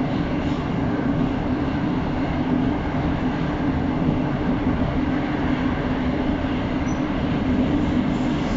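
Moskva-2020 metro train heard from inside the car while running through a tunnel: a steady rumble of the wheels and running gear with a constant low hum.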